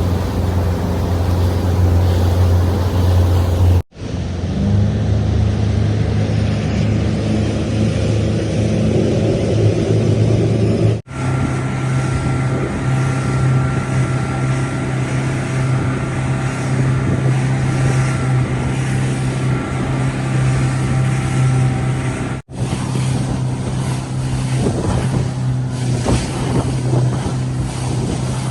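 Boat's outboard motor running steadily under way, with wind on the microphone. It breaks off abruptly three times and resumes at a slightly different steady pitch each time, as separate clips are joined.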